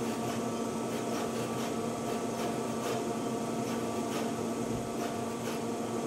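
Surface-mount pick-and-place machine running a dry run: a steady mechanical hum with faint, irregular ticks as its nozzles come down to pick and place components.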